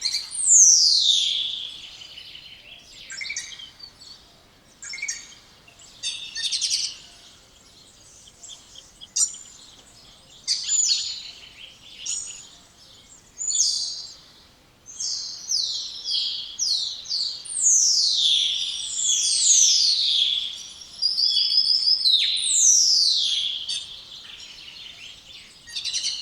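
Spotless starling singing: repeated loud whistles that slide steeply downward, mixed with short chattering and clicking notes, with a quick run of falling whistles in the second half.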